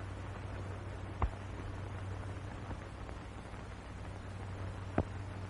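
Steady hiss and low hum of an old 1940s film soundtrack, with two short sharp clicks, one about a second in and one near the end.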